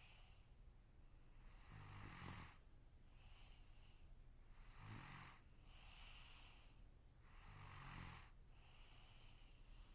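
A sleeping person snoring faintly: three snores about three seconds apart, each a low rattle, with a softer, higher hissing breath between them.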